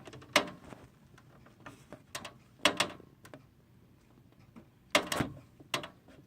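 Irregular sharp clicks and knocks from the loose fan of an unplugged Fedders window air conditioner as it coasts slowly down.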